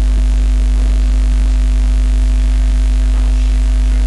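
Loud, steady electrical mains hum on the recording: a low drone with a few steady higher tones above it, under an even hiss.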